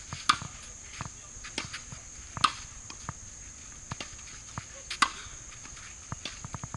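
Tennis balls struck by rackets during a rally: three sharp pops about two and a half seconds apart, with fainter knocks of the ball bouncing on the hard court between them.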